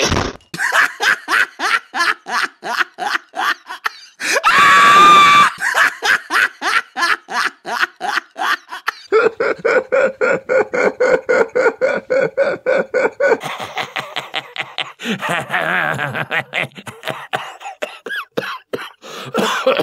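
Rapid, rhythmic laughter, about four 'ha's a second, set as a hedgehog's laugh. About four seconds in comes a loud held squeal, the loudest moment, and the laughter then runs on in shifting pitches.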